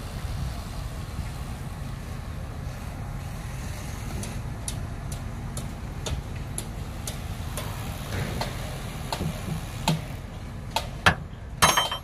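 Scania dump truck's diesel engine idling with a steady low rumble. From about four seconds in come scattered sharp clicks and knocks, louder and closer together in the last two seconds.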